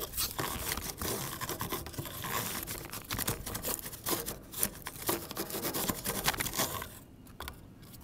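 Cardboard fin brush scraping and rustling as it is swept left and right through the gaps of a refrigerator condenser coil, with many small clicks as it catches on the wire; the scraping stops about seven seconds in.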